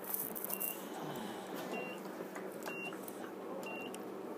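A short, high-pitched electronic beep repeats four times, about a second apart, over steady background noise with a low hum.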